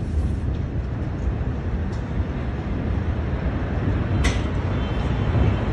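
Low, steady rumble with wind buffeting the phone's microphone after a huge explosion, and one short sharp crack about four seconds in.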